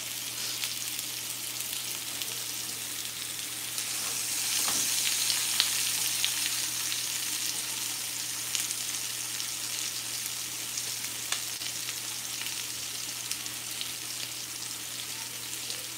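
Chicken frying in a pan on the stove: a steady sizzle with scattered small crackles, swelling a little about four seconds in and then easing back.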